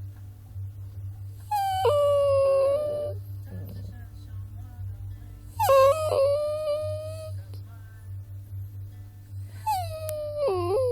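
Puppy whining in three long, high cries a few seconds apart, each starting higher and dropping to a held pitch, over a steady low hum.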